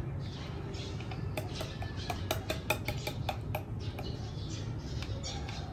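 Spoon clicking and scraping against a steel bowl of yogurt: a quick run of about a dozen sharp clicks in the middle, over a steady low hum.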